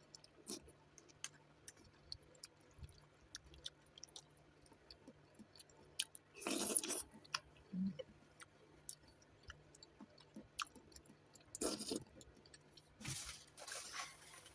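Close-up chewing of noodles with many small wet mouth clicks, and a few longer, louder slurps about six and a half seconds in and again near the end.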